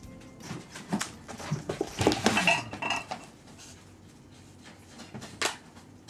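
A cat at play, knocking things about on a wooden floor: a run of clattering knocks and scrapes, loudest about two seconds in, with one more sharp knock about five seconds in.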